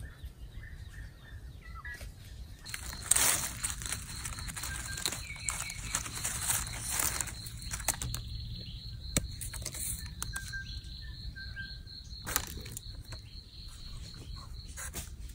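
Rustling and scraping in dry leaf litter and soil by hand while searching for mushrooms, heaviest from about three to seven seconds in, with a few sharp snaps. An insect's steady high buzz and a few brief bird chirps sound behind it.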